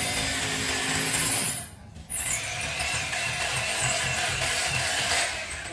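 A power tool running with a steady, hissing cutting or grinding noise. It stops briefly about two seconds in, then starts again with a whine that climbs as it spins back up.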